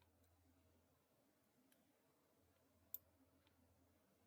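Near silence: room tone, with one sharp click about three seconds in and a few fainter ticks.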